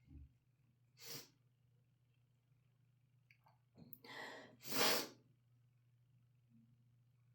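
A person sneezing, set off by Chhinkni snuff in the nose. A short burst of breath noise about a second in, then a breathy build-up near four seconds, then one loud, explosive sneeze.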